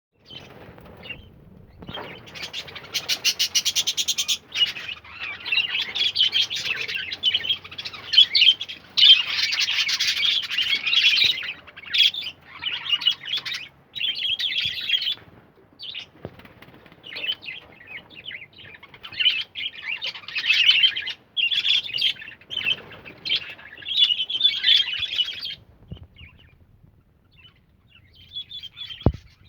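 A group of pet birds chirping and chattering rapidly in bouts of a few seconds, with short pauses between, while being given water spinach to eat.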